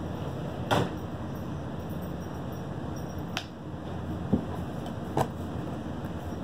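Four light, sharp clicks and taps of small plastic items being handled, a bottle of colouring and plastic containers, over a steady low hum.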